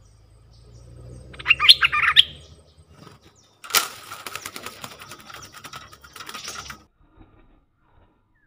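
Bulbuls giving a quick burst of sharp chirps about a second and a half in, then a wild bulbul's wings flapping and fluttering against the bamboo decoy cage for about three seconds.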